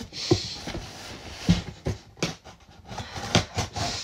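A woman crying as she breathes, while a cardboard box is cut open and handled, giving short irregular knocks and scrapes.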